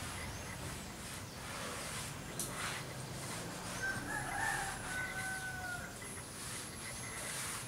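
A rooster crowing once, a drawn-out call of about two seconds starting about four seconds in and dropping at the end, over steady outdoor background noise.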